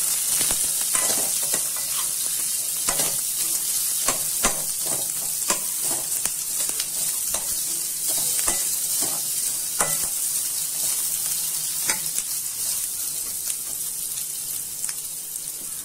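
Onions, garlic, chillies and whole spices sizzling in hot oil in a metal kadai, with a metal ladle scraping and knocking against the pan at irregular moments as they are stirred.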